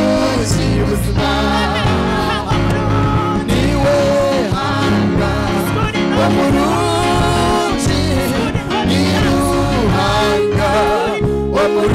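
Gospel choir singing a praise song, several voices through microphones over steady instrumental accompaniment with a bass line.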